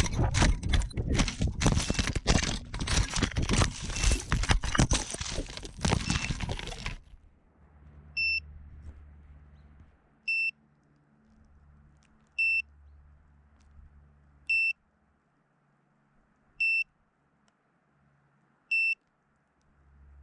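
A loud rush of noise with rapid knocks cuts off suddenly about seven seconds in. Then a single short, high beep repeats about every two seconds, six times, typical of a crashed FPV quadcopter's lost-model buzzer calling out its position.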